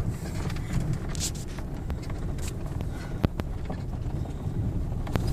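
A vehicle driving along, a steady low rumble with a few sharp clicks and rattles, one standing out about three seconds in.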